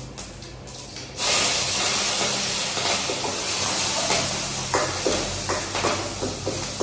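Chillies dropped into hot oil and cumin in a steel pot, sizzling: a sudden loud hiss about a second in that goes on and slowly eases, with scattered pops and crackles.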